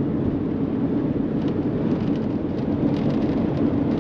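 Steady engine and road noise of a diesel van cruising at highway speed.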